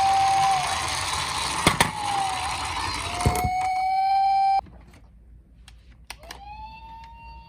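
Toy emergency-vehicle minicar sirens sounding: a loud electronic siren tone that holds, dips and glides, over a whirring rattle with a few sharp knocks. It cuts off suddenly about halfway through, and a fainter siren tone starts up near the end.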